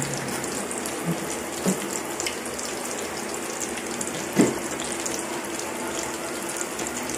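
Breaded chicken drumsticks frying in hot oil in a stainless steel pan: a steady sizzle with fine crackling, and one louder pop about four seconds in.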